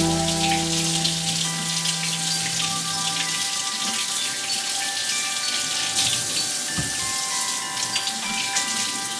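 Water from a kitchen tap splashing over an apple being rinsed by hand in the sink, a steady hiss. Soft background music with long held notes plays underneath.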